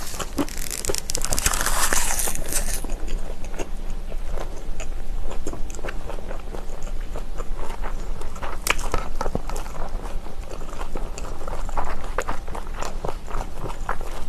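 A person chewing and biting kimchi close to the microphone, with many short wet crunches. A dense crackling rustle fills the first three seconds, then stops.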